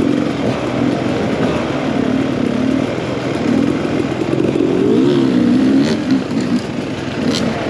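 Beta 300 RR two-stroke single-cylinder enduro motorcycle engine running, its pitch rising and falling as the throttle is worked.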